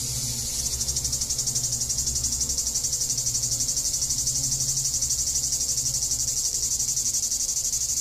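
Cicada buzzing continuously: a loud, high-pitched drone with a fast, even pulsing of about eight beats a second.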